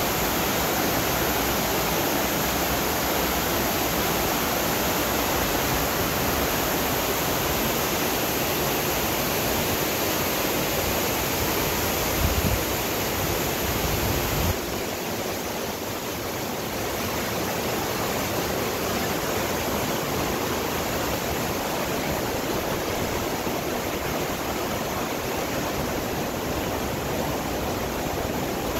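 Fast-flowing mountain creek rushing over rocks: a steady whitewater rush. It has a few low bumps about halfway through, then drops a little in level.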